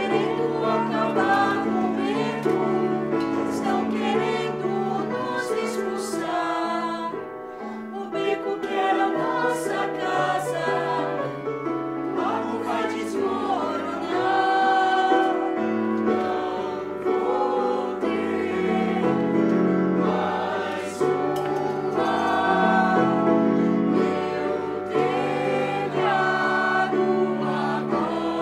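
A musical number: voices singing together over instrumental accompaniment, with a bass line stepping from note to note.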